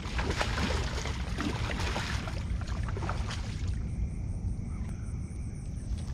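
Rustling and crackling of dry brush and twigs as a person moves and crouches in it, with many small snaps, for about the first three and a half seconds, then stopping. Under it a steady low rumble.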